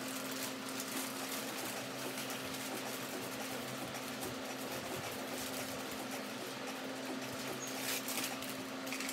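A steady low hum, with a few faint rustles of wrapping paper being handled and pressed onto a wall, the clearest near the end.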